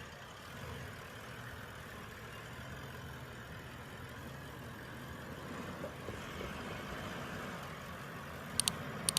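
A motor vehicle's engine running steadily at low revs, with two short high clicks near the end.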